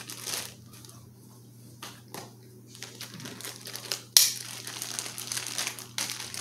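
Plastic packaging bag of a chainsaw chain crinkling and rustling in the hands as it is opened, in irregular bursts, with one sharp snap about four seconds in.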